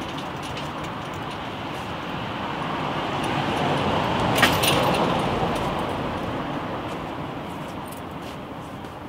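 A car passing along the street, its engine and tyre noise swelling to a peak about halfway and then fading away. A short metallic click and rattle sounds near the peak.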